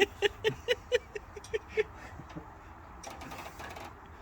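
An animal's quick run of short repeated calls, about four a second, slowing and fading out about two seconds in.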